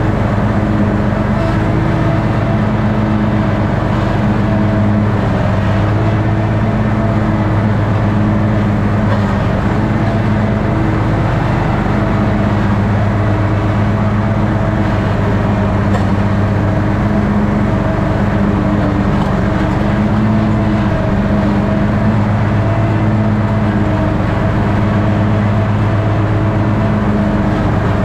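Toro ride-on mower's engine running steadily while mowing grass, a constant loud drone.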